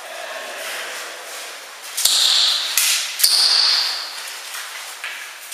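Two sharp airsoft gun shots about a second apart in a concrete warehouse, each followed by a brief high-pitched squeal.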